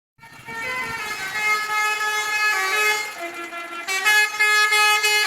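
Indonesian bus's 'telolet basuri' musical air horn playing a tune, several horn tones sounding together and stepping from note to note, louder from about four seconds in.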